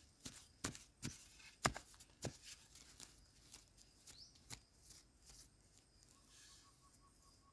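Bare hand scraping and clawing through crumbly soil to uncover a wild yam tuber: faint rustling of loose earth with irregular sharp clicks of clods and grit.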